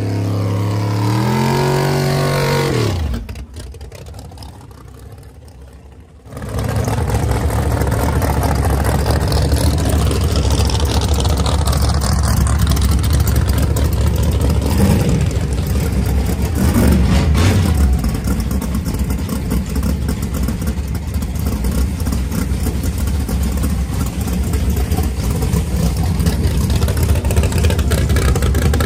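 Drag-radial race car engine revving up and down a few times, then after a brief quieter gap, loud, choppy idling of drag race engines with a couple of short throttle blips.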